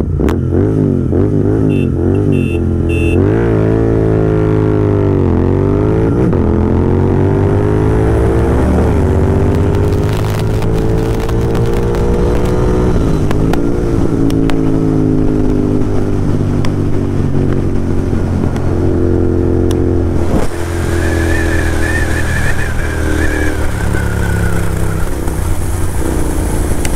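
Royal Enfield Interceptor 650 parallel-twin engine accelerating hard at full throttle. Its pitch climbs and dips at each gear change, with wind rushing over the camera microphone. A few short horn beeps about two seconds in give the start signal.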